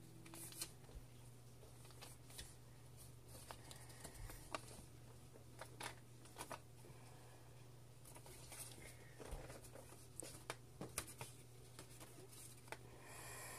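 Sheet of paper being folded and creased by hand into a paper airplane: scattered soft crinkles and crisp creasing snaps, over a faint steady low hum.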